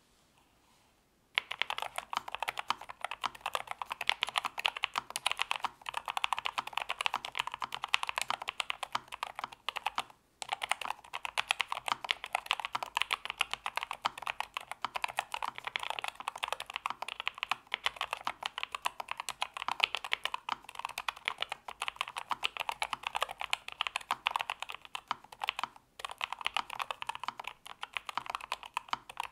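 Fast, continuous typing on a NuPhy Air60 V2 low-profile mechanical keyboard fitted with Cowberry switches: a dense run of rapid key clacks. It starts about a second in and breaks off briefly twice.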